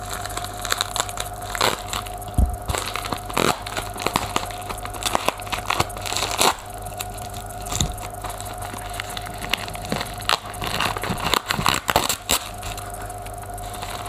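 A parcel's packaging handled and pulled open by hand: irregular crunching and crackling, with sharper cracks every few seconds.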